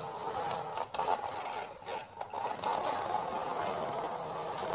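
Plastic toy dump truck pushed by hand across a hard floor, its plastic wheels rolling and scraping in a steady grinding rumble that briefly drops out about a second in and again around two seconds in.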